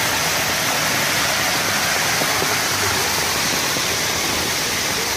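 Storm runoff after a heavy downpour pouring over a concrete planter ledge and rushing across flooded pavement: a steady, even rush of water.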